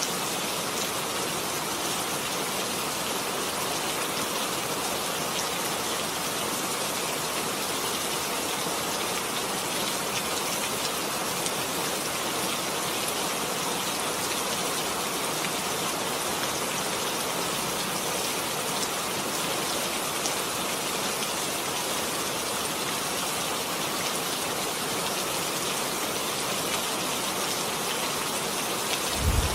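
Steady rain, an even hiss of many drops falling on surfaces. Right at the end, a loud low rumble of thunder begins.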